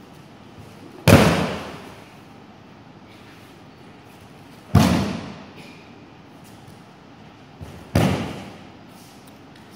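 Three loud slaps of aikido break-falls, a body and arm hitting the practice mats, each followed by a short echoing decay in a large hall.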